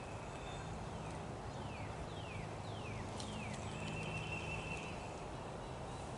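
Rustling and light knocks from a climbing stick's nylon strap and clip gear being handled and rolled up against the tree. In the background a bird calls a run of about five short whistles, each falling in pitch, then one brief steady whistle.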